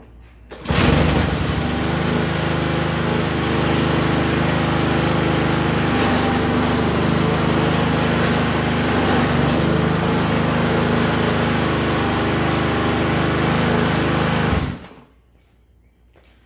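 Honda GCV160 single-cylinder overhead-cam engine on a walk-behind lawn mower starting up under a second in, catching at once with its auto choke, running steadily at speed, then shutting off abruptly near the end.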